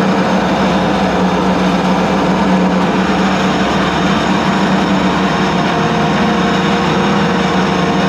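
Toyota 1UZ-FE V8 in a jet boat running steadily at revs, its engine note holding one even pitch.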